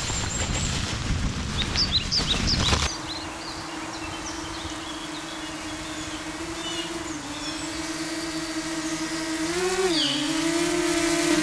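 Stream water rushing with small birds chirping for about three seconds. It then cuts to a steady motor hum, with birds still chirping; the hum's pitch dips briefly twice, the second time near the end, then rises again.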